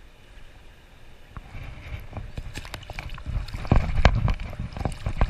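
Water splashing and sloshing with a run of irregular knocks, building from about two seconds in and loudest near the end, over a low rumble.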